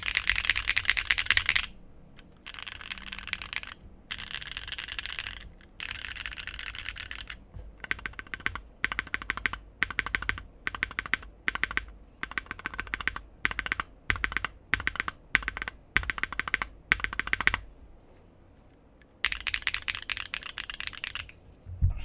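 Mechanical keyboard fitted with JWK-made Moyu Green Snake linear switches, typed on in a sound test with a bright, clacky sound. Fast runs of typing open the test, followed by separate key presses about two a second and, after a short pause, another fast run near the end.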